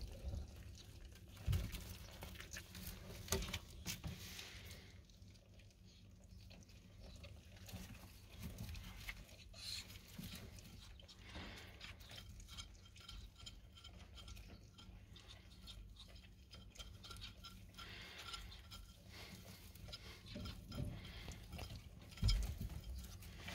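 Ferret kits eating from a shared dish of milk and meat chunks: faint, scattered eating noises and rustling in wood shavings, with two louder bumps, one near the start and one near the end.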